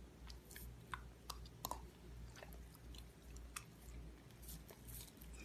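Faint, scattered wet clicks of a dog licking and mouthing at an egg held to its nose, over a low steady hum.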